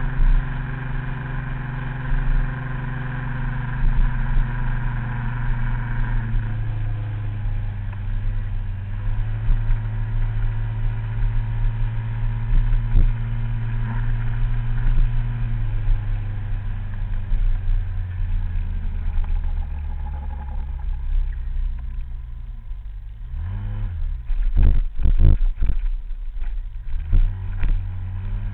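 Small scooter engine running under way, heard from the scooter itself, its pitch shifting as the rider eases off and speeds up. About three quarters through, the engine speed dips and picks up again, followed by a run of sharp knocks.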